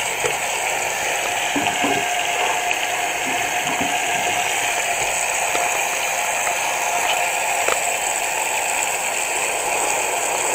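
Kitchen tap running in a steady stream, the water splashing onto plastic bags of sausages and chicken pieces in a stainless steel sink.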